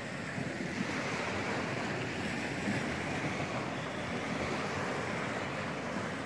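Small sea waves breaking and washing up a sandy beach in a steady surf wash that swells and eases.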